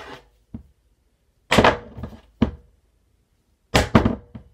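A roll of tape being flipped and landing, knocking and clattering against a Rubik's cube and a wooden tabletop: a quick cluster of knocks about one and a half seconds in, a single knock after it, and another cluster of knocks near the end.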